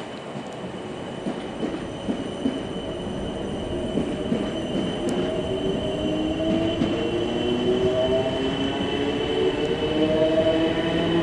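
Class 455 electric multiple unit moving off. Its traction motors whine, the pitch rising steadily from about six seconds in as the train accelerates, with a steady high-pitched tone and wheel rumble throughout.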